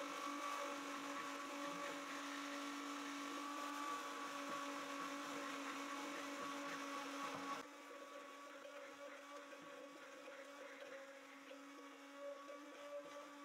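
Hand-held immersion (stick) blender motor running at a steady pitch in a plastic jug, whipping egg, vinegar and oil into mayonnaise. It drops suddenly in loudness about halfway through.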